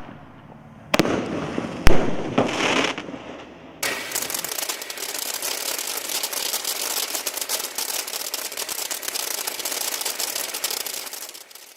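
Consumer firework going off: two sharp bangs about a second apart and a brief hiss, then about eight seconds of dense, continuous crackling that fades out near the end.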